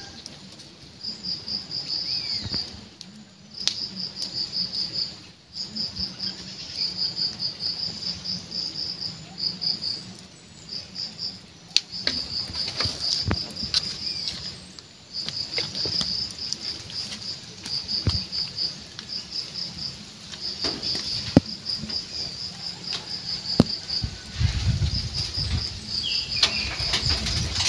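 An insect chirping in high, rapid pulsed trills, each about a second long, repeating with short gaps. Occasional faint clicks, and a low rumble near the end.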